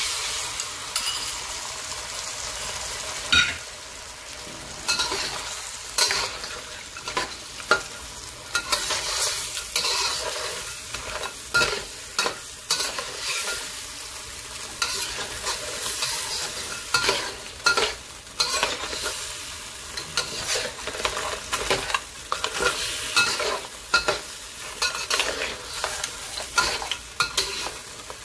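Lobster pieces stir-fried in a wok with a cornstarch-thickened sauce: the sauce sizzles steadily while a metal wok spatula scrapes and knocks against the pan and the shells in frequent, irregular clanks.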